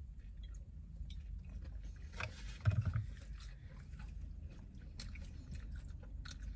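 People chewing food, with many small mouth clicks and smacks over a steady low hum, and a short louder low sound about two and a half seconds in.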